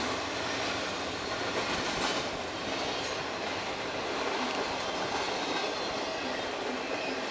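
Double-stack intermodal freight train passing: steady rolling and rattling of steel wheels on the rails from the loaded well cars, with a couple of sharper clacks about two and three seconds in.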